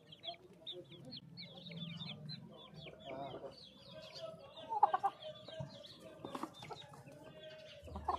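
Young game-fowl chickens calling: a quick run of high, falling peeps for the first few seconds, then lower clucks and a drawn-out call in the second half. A few sharp taps sound about five and six seconds in.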